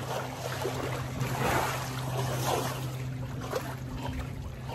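Water sloshing and splashing as an elephant moves in a pool, with a swell of splashing about a second and a half in, over a steady low hum.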